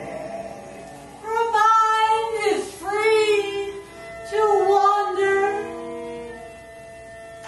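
Music: a high singing voice holds three long notes, the first sliding downward at its end, over a steady sustained tone.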